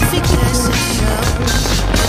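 Loud music from the soundtrack of a pyromusical fireworks display, dense and steady, with sharp hits running through it.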